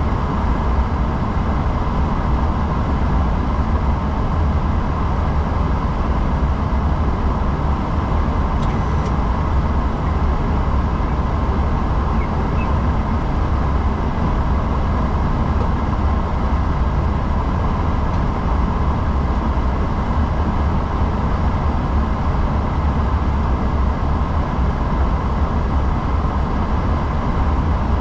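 Steady flight-deck noise in an Airbus A340-600 during push-back: a constant low hum under an even rush of air, with faint steady tones above it.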